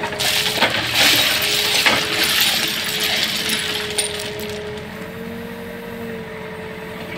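Crushed-stone railway ballast clattering and rattling for about four seconds as a CASE backhoe loader's bucket shifts it, over the steady drone of the machine's engine.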